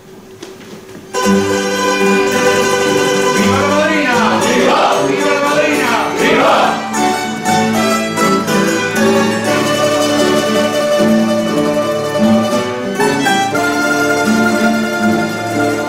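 A rondalla, a Spanish plucked-string ensemble of bandurrias, lutes and guitars, starts playing suddenly about a second in, then carries a slow melody with long held notes.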